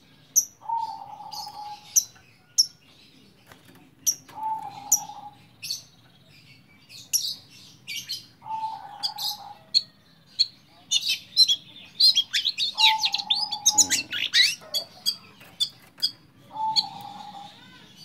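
Caged long-tailed shrike (pentet) singing: rapid sharp chirps and quick sweeping high notes, a busy mimicking song, thickest a little past the middle. A steady lower whistled note of about a second comes back roughly every four seconds.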